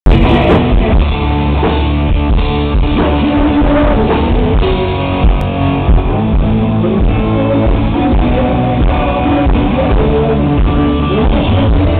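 Live rock band playing loud: electric guitar and drum kit with a male lead vocal.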